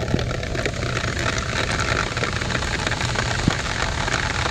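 Steady rain falling on a wet sidewalk and street, with many small drop ticks and a steady low rumble underneath.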